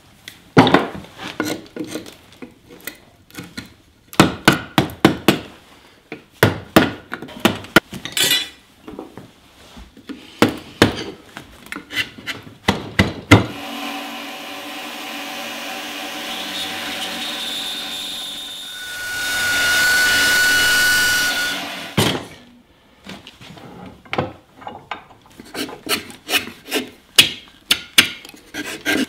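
Wood carving of a hat block: a gouge cuts into the wood in quick irregular sharp strikes and scrapes. About 13 seconds in, a steady machine sound runs for several seconds, louder near the end of that stretch. Then hand gouge cuts and scraping resume.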